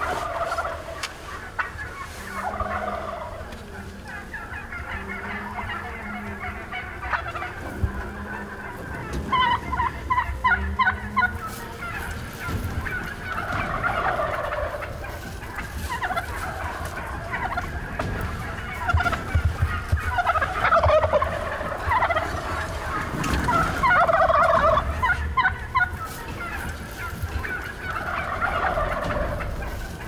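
Wild turkey toms gobbling again and again, several rapid rattling gobbles coming in clusters, some overlapping.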